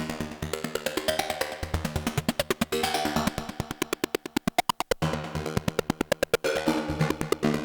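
Dreadbox Typhon monophonic analog synthesizer playing a factory preset: a fast sequenced pattern of short, percussive notes over a held low bass line. About four seconds in the pattern thins to a quicker string of clipped notes, and the full low part comes back about five seconds in.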